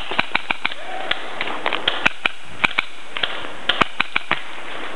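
Paintball markers firing in an exchange of shots: a dense, irregular string of sharp pops, about four a second, some coming in quick pairs.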